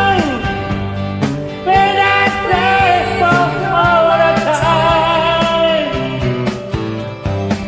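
A singer's voice carrying the melody of a rock song over band accompaniment with a steady drum beat, some notes held with vibrato.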